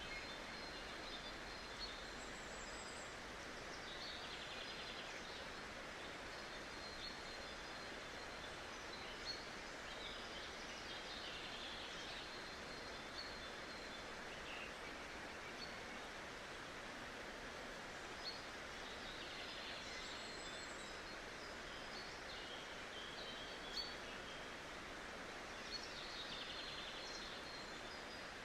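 Outdoor ambience: a steady hiss with scattered short, high bird calls and chirps coming and going.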